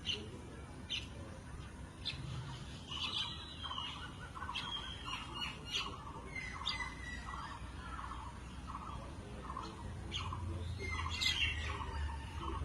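Birds calling: a short call repeated about twice a second, with sharp, higher chirps over it.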